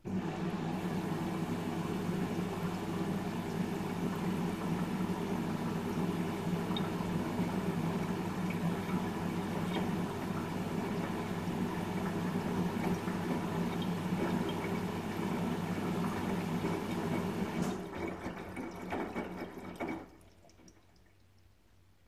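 Front-loading washing machine moving water: a steady rush of water with a low motor hum starts suddenly, turns ragged and uneven about 18 seconds in, and stops about two seconds later.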